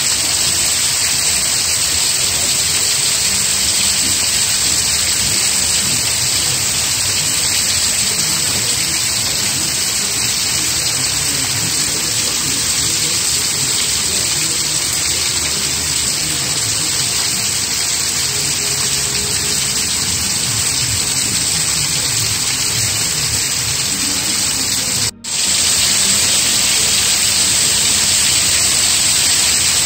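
Heavy rain falling steadily, a loud, even hiss of water with no let-up. It drops out for a split second near the end, then resumes.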